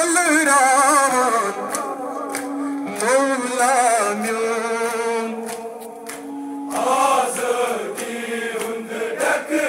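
Male voices chanting a Kashmiri noha, a Muharram lament, with long held notes that waver in pitch.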